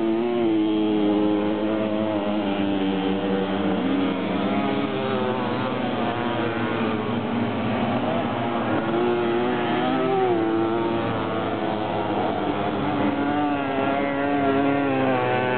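Several small two-stroke moped engines buzzing and revving as they race past, their pitches rising and falling and overlapping.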